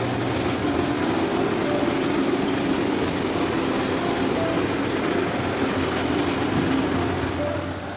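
Machinery running steadily with a dense rumble and clatter.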